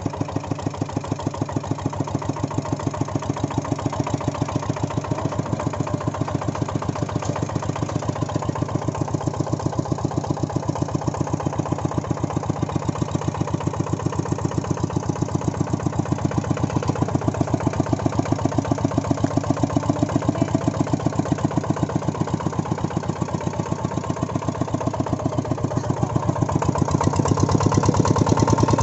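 Two-wheel tractor's single-cylinder diesel engine running steadily, an even, rapid beat of firing pulses that grows a little louder near the end.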